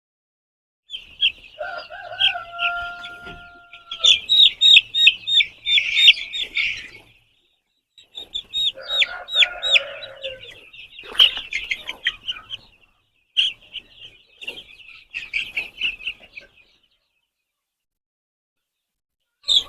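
A flock of chicks peeping, with an adult chicken's drawn-out call about two seconds in and lower clucking calls near the middle. The sound comes in several stretches with silent gaps between them.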